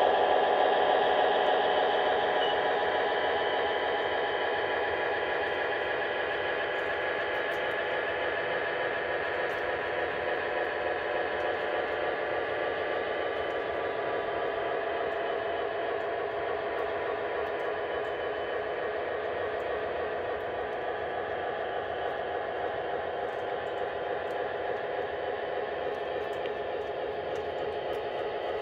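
O scale covered hopper cars rolling along the track, their metal wheels giving a steady rolling rattle. It is louder at the start and settles to an even level after a few seconds.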